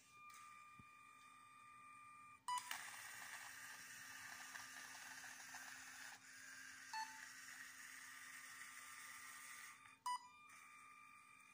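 A LEGO Spike Prime robot's hub gives three short electronic beeps, several seconds apart. Under them runs the faint steady whine and hiss of its drive motors as it runs along the line.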